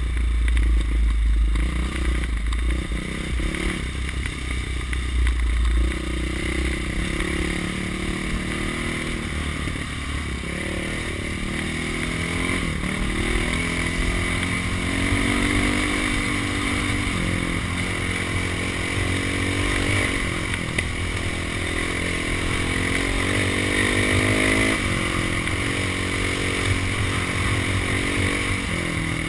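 Dirt bike engine running under throttle, its pitch rising and falling as the rider accelerates and eases off, with heavy wind buffeting on the microphone for the first few seconds.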